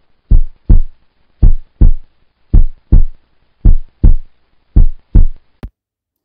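Heartbeat sound effect: five loud double thumps in a steady lub-dub rhythm, a little over one beat a second, followed by a short click near the end.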